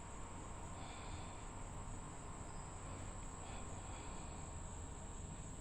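Faint, steady, high-pitched insect chirring over low background hum.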